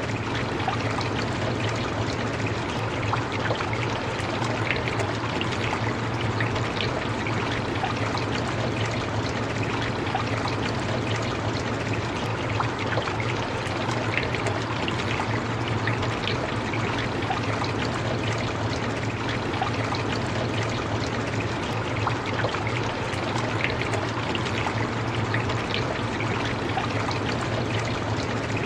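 Steady rain falling, an even hiss dotted with many small drop ticks, with a constant low hum underneath.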